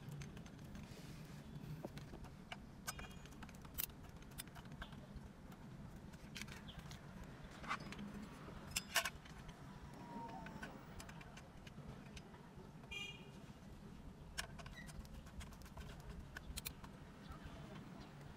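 Scattered metallic clicks, knocks and light clinks as a car stereo head unit with a steel mounting bracket is handled and offered up to the dashboard opening, over a low steady hum.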